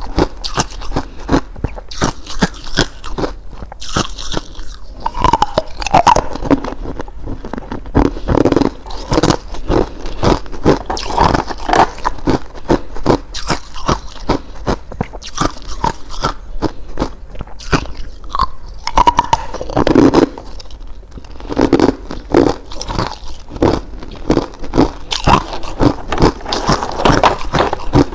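Ice being bitten and chewed close to the microphone: a dense run of sharp, irregular crunches and cracks as the cubes break between the teeth.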